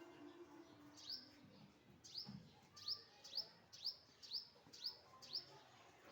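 Small birds chirping faintly: a regular string of short, high, upward-sweeping chirps, about two a second, starting about a second in, typical of nestlings calling for food.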